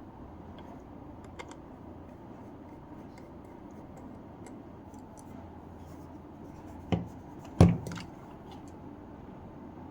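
Hand handling of a screwdriver and a Ring doorbell: light scrapes and clicks, then two sharp knocks about seven seconds in, the second the louder, with a brief rattle after it.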